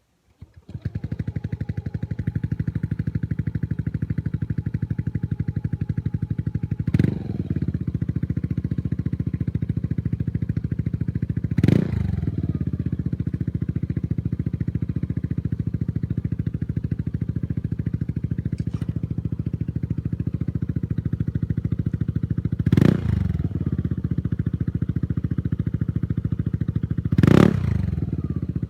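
Yamaha Aerox scooter's engine through an aftermarket Akrapovic-copy exhaust starting up, then idling with a steady putter, given four short throttle blips.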